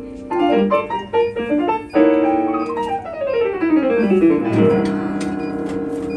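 Solo jazz piano: a quick flurry of notes, a chord struck about two seconds in, then a run of notes cascading downward that lands on a low held chord about four and a half seconds in.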